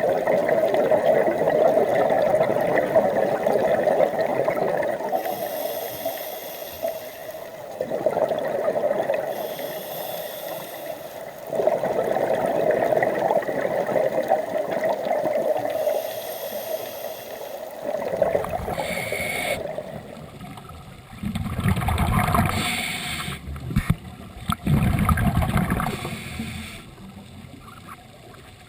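Sea water gurgling and sloshing around the microphone, surging every few seconds. From about twenty seconds in it turns to rougher low rumbling splashes and knocks.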